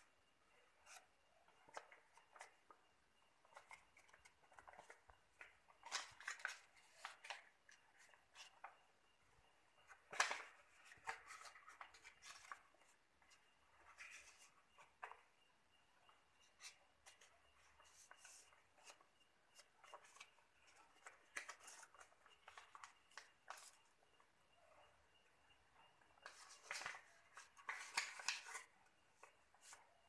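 Faint, intermittent rustling and crinkling of a sheet of paper being folded and creased by hand, louder in short spells about six seconds in, about ten seconds in and near the end.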